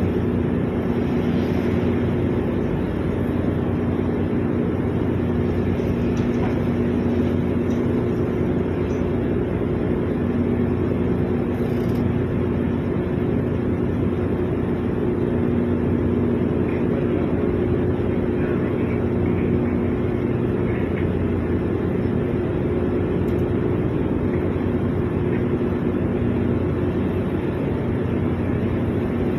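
Steady drone of a ship's onboard machinery heard on deck: a constant hum with two unchanging tones over a noisy wash, with no change in level.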